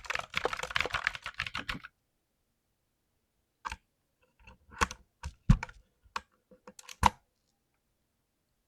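Mechanical keyboard keys clacking in a quick run of typing for about two seconds. After a pause, a dozen or so separate clacks and knocks follow, the loudest near the end.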